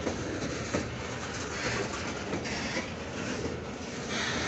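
Loaded coal hopper wagons of a freight train rolling past close by: a steady rumble and hiss of steel wheels on rail, with a few sharp clacks.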